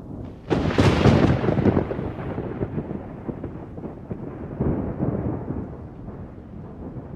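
Thunder: a sharp crack about half a second in, then a long rolling rumble that fades and swells again a few seconds later.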